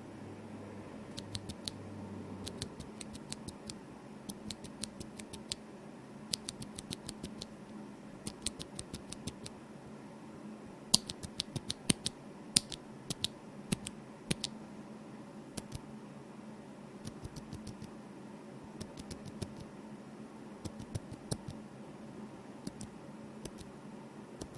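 Typing on a Drop Shift mechanical keyboard whose switches and stabilizers are lubed and whose case is filled with EVA foam: a quiet typing sound of quick keystrokes in irregular runs with short pauses. One keystroke about eleven seconds in is louder than the rest.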